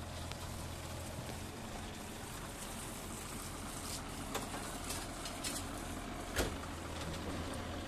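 Yanmar mini excavator's diesel engine running steadily, with a few sharp knocks over it, the loudest about six seconds in.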